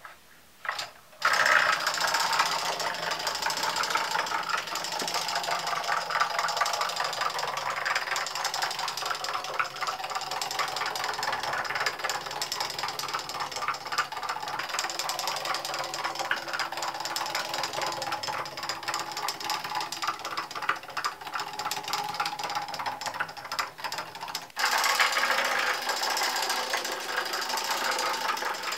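Ugears wooden mechanical tractor model running on its rubber-band motor: a fast, steady clatter of wooden gears meshing as it rolls. It starts about a second in and breaks off briefly a few seconds before the end, then resumes.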